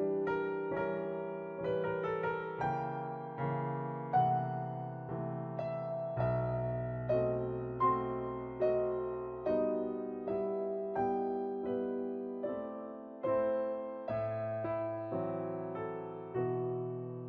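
Background piano music: a slow, gentle melody of struck notes and chords, each note fading after it is played.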